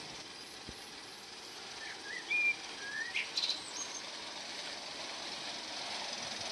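Songbirds chirping, a few short calls and quick glides from about two seconds in, over a steady hiss that grows louder near the end as a Gauge 1 live steam locomotive, an ASTER SNCF 140C 2-8-0, draws closer.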